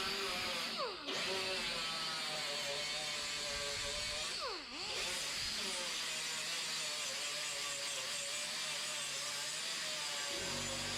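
Handheld electric power tool running continuously, its motor whining steadily. Twice, about a second in and again past four seconds, the pitch drops sharply and climbs straight back, as the motor slows and recovers.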